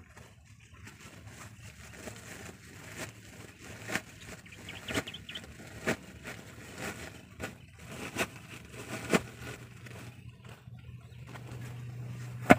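Woven plastic sacks being handled and garden soil shovelled: a string of sharp rustles and knocks about a second apart, then one loud knock near the end.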